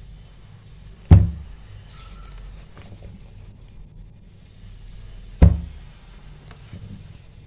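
Two dull thumps about four seconds apart as the stiff pages of a handmade scrapbook are turned and laid flat, with faint paper rustling between them.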